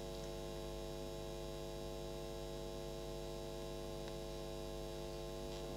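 Steady electrical mains hum, a low even buzz that holds unchanged, with no other sound.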